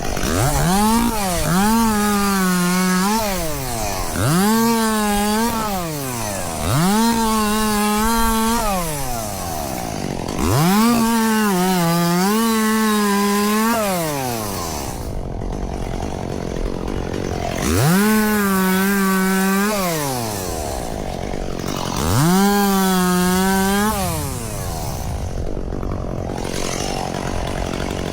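Chainsaw engine revved six times: each time the pitch climbs, holds steady at full throttle for one to three seconds, then drops back to idle.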